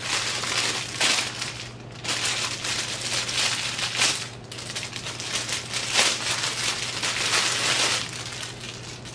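Clear plastic packaging crinkling in the hands in several bursts, as a bundle of hair extensions is handled inside its plastic bag.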